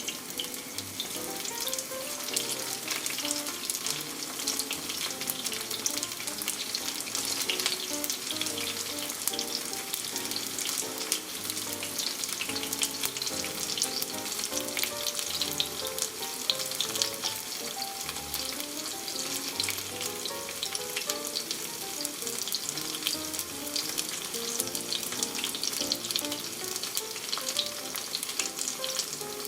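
Starch-coated zucchini pieces shallow-frying in oil, a dense, continuous crackling sizzle.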